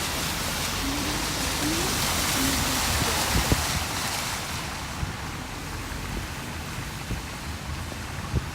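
Steady rushing of floodwater, with wind buffeting the phone's microphone. The high hiss thins out about halfway through, and there are a couple of brief knocks.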